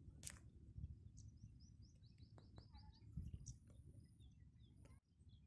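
Faint bird chirping, with a quick run of short falling notes about two seconds in and a few scattered high calls.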